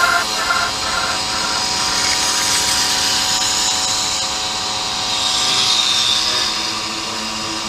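Moped's small 50 cc two-stroke engine running at a steady speed, an even high-pitched drone.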